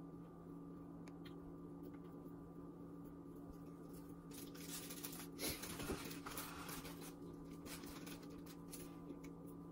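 Soft handling sounds of fingers crimping raw pie-crust dough around the rim of a glass pie dish: faint rustling and small taps, louder for a couple of seconds around the middle, over a faint steady hum.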